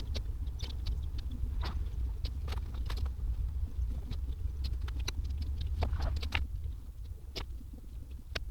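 Scattered light clicks and taps, a dozen or so at irregular intervals, of small parts being handled, over a steady low hum.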